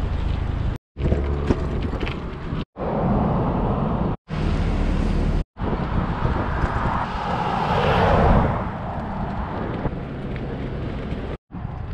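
Wind noise on a handheld GoPro's microphone while cycling beside a road, with passing traffic; a car goes by about eight seconds in, swelling and fading. The sound breaks off briefly five times where clips are joined.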